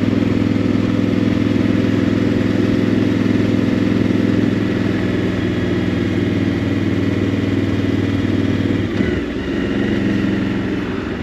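Motorcycle engine running steadily at road speed, heard from the rider's seat. About nine seconds in the engine note briefly dips and shifts in pitch, then carries on.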